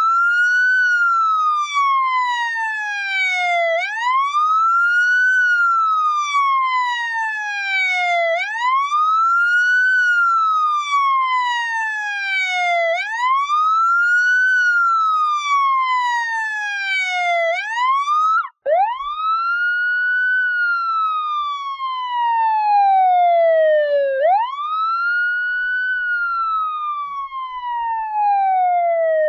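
Police siren wailing: each cycle sweeps up quickly and falls slowly, repeating about every four and a half seconds. About eighteen seconds in it cuts out for a moment and resumes with slightly slower cycles.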